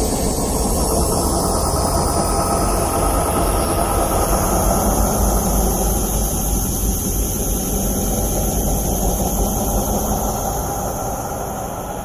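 Horror background soundscape: a heavy, steady low rumble under thin, sustained high tones, slowly fading near the end.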